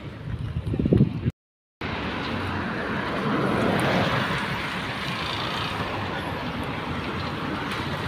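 Steady road traffic noise, with a brief cut to dead silence about a second and a half in; just before the cut there are a few louder, uneven low rumbles.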